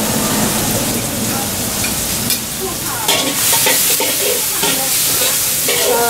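Ingredients sizzling in hot oil in a steel wok over a gas burner, with a metal spatula scraping and knocking against the pan. The sizzle grows louder about three seconds in.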